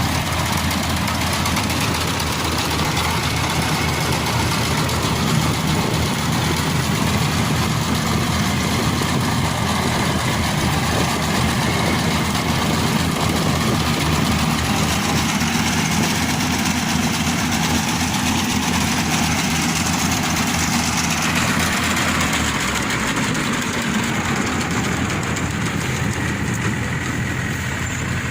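Yanmar AW70V combine harvester's diesel engine and machinery running steadily, with a slight change in the engine note a little over twenty seconds in.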